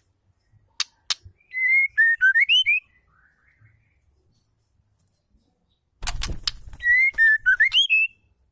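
Female white-rumped shama calling: two sharp ticks, then a short whistled phrase of gliding notes, then a quick rattle of clicks and the same whistled phrase repeated.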